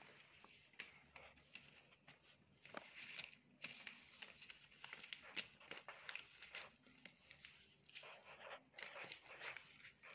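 Faint scratching of a pen writing on notebook paper: short irregular strokes with a few small ticks as words and numbers are written out.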